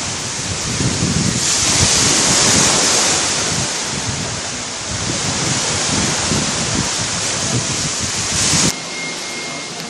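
Sea waves washing with wind buffeting the microphone in gusts. The noise drops abruptly near the end, leaving a faint steady high tone.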